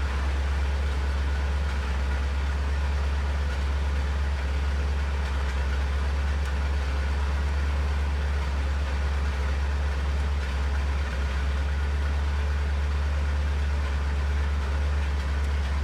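Steady low mechanical hum at an even level, with no rise or fall in pitch.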